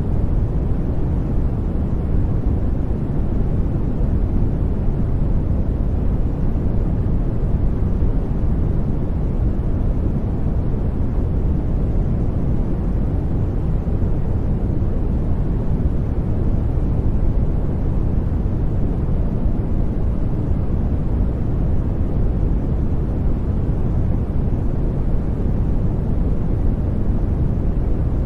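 Brown noise: a steady, deep rushing noise, strongest in the lows and thinning out toward the highs.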